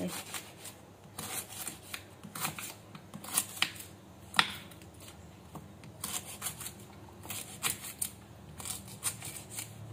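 Kitchen knife slicing a lemongrass stalk into rounds on a wooden chopping board: irregular clusters of short cuts and taps, with one sharper knock about four and a half seconds in.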